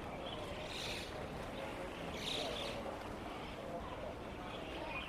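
Outdoor town ambience: a steady background rumble with faint, distant voices, and a couple of brief hissy sounds about one and two and a half seconds in.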